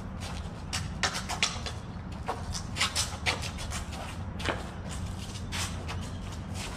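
Quick, irregular scuffing footsteps and shuffling of two people moving about as they spar, over a steady low rumble.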